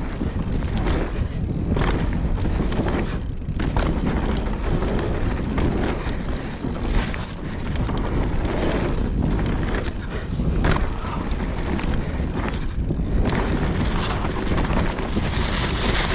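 Mountain bike descending a rough dirt trail at speed: wind buffeting the microphone over a continuous rumble of tyres and rattling frame, broken by frequent sharp knocks as the bike hits bumps.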